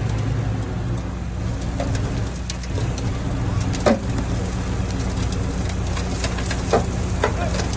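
Heavy diesel earthmoving machine running steadily, with scattered sharp clicks and knocks, the loudest about four seconds in.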